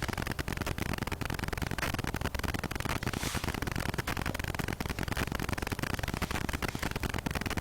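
Steady static-like hiss with a fine crackle running under the recording; no distinct tool or water sound stands out.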